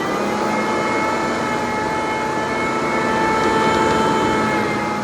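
Vacuum cleaner running steadily at full speed, just after being switched on: a whine of several steady tones over a rush of air.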